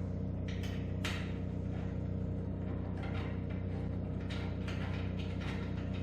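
Scattered light clicks and taps of small metal hardware being handled, over a steady low hum.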